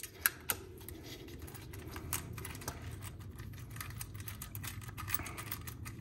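Small metal clicks and rattles from a strain-relief clamp being fitted onto the back of a Deutsch HD connector. There are two sharp clicks in the first half second, then faint scattered ticks over a steady low hum.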